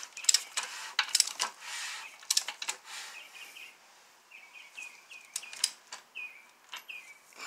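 Sharp metallic clicks and clinks of tools being handled on the engine for the first few seconds, then a small bird chirping repeatedly in short, quick notes.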